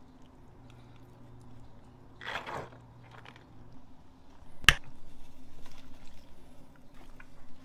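Plastic seasoning shaker bottle: its lid snaps open with one sharp click, then dry rub is shaken out in quick rattling shakes. A short wet squish of raw turkey skin being handled comes first.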